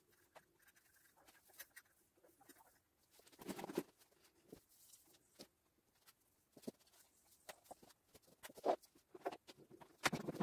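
Faint handling noises from an artificial Christmas tree: scattered rustles, taps and footsteps as someone works at the base of the tree and moves around it, with a louder rustle about three and a half seconds in.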